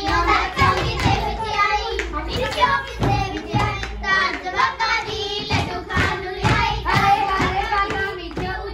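Young girls singing Punjabi folk boliyan together, with steady rhythmic handclapping throughout.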